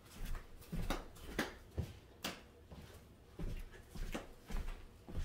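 Scattered soft knocks and rustles of paper sheets being handled, about nine at irregular intervals.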